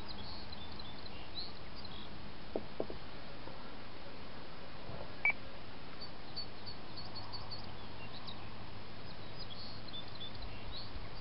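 Steady outdoor background hiss with faint, high, scattered chirping, in clusters near the start and through the second half, and a few soft clicks around the middle.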